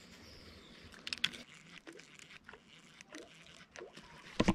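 A few faint clicks and ticks from a baitcasting fishing reel being handled during a cast and the start of the retrieve, with a small cluster of clicks about a second in; otherwise quiet.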